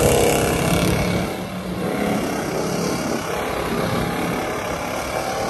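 Pickup truck engines running hard as the trucks drive and spin their tyres through deep mud. The sound is loudest at the start and eases a little after about a second.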